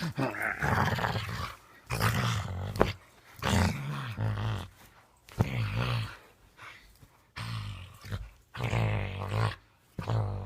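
Dog making a series of low, growly grumbling noises, about seven short bursts one every second or two.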